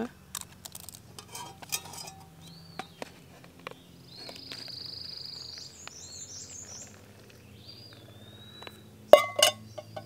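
Small clinks and knocks of camp cookware and utensils being handled while wild birds sing whistled, gliding and trilling phrases; a sharper clatter of knocks a little after nine seconds in is the loudest sound.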